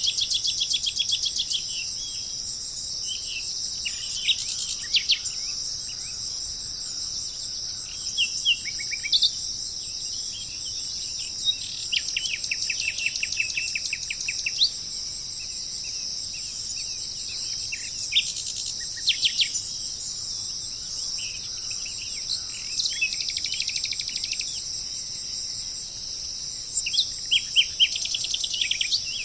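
Steady high-pitched chorus of crickets, with songbirds breaking in every few seconds with short phrases of chirps and rapid trills.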